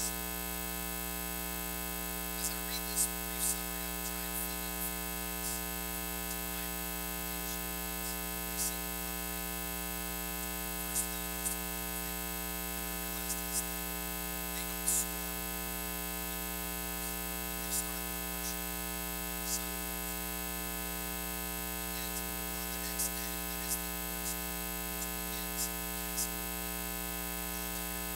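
Steady electrical mains hum and buzz that does not change, with scattered short clicks and crackles.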